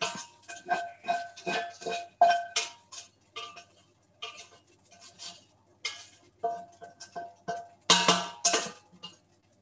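Metal spoon knocking and scraping against a frying pan in quick runs of strikes, each leaving a short metallic ring, as fried tofu is scooped out. The loudest knocks come near the end.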